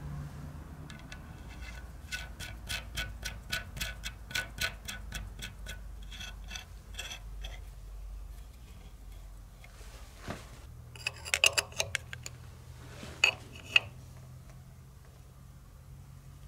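Light metallic ticking, about four ticks a second for several seconds, as a steel nut is turned by hand down the threaded axle stud of a Velosolex rear brake plate. Later come a few sharper metal clinks as open-end spanners are set on the nuts.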